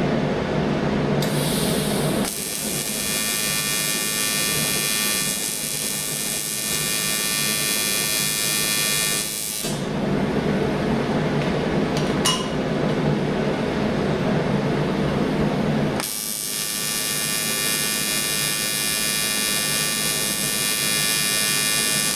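AC TIG welding arc on aluminium, buzzing steadily with a high, many-toned sizzle as filler is dipped in. It runs in two stretches of several seconds each: one starting about two seconds in, the other about sixteen seconds in. A lower steady hum fills the gap between them.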